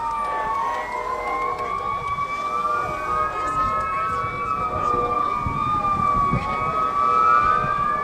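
Several fire-truck sirens wailing together, their tones overlapping in slow rises and falls.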